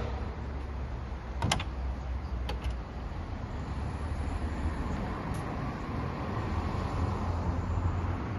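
A few sharp clicks, two close together about a second and a half in and two more about a second later, over a steady low rumble.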